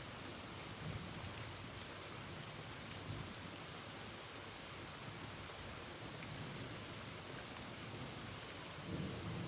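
Steady rain falling on a tin roof, an even hiss of drops, with a low rumble swelling near the end.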